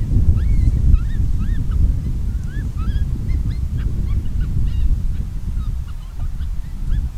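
Rapid series of short, arching honk-like animal calls over a loud, steady low rumble.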